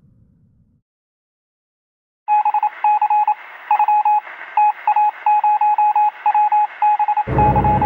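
A run of electronic beeps, all at one pitch, in an irregular pattern of short and longer tones, with a thin, phone-line quality. A loud deep rumble comes in near the end.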